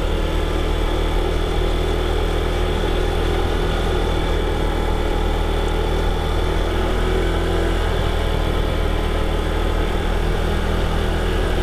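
A car engine running with a steady low hum.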